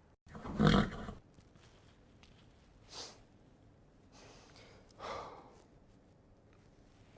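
A horse snorting: one loud blast about half a second in, then two shorter, quieter snorts around three and five seconds in.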